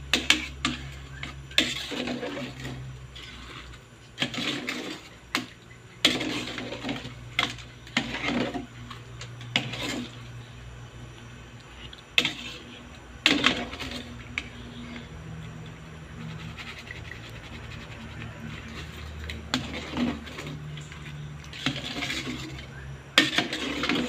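Metal utensil clinking, knocking and scraping in a cooking pot of prawns: irregular sharp knocks, some in quick clusters, over a steady low hum.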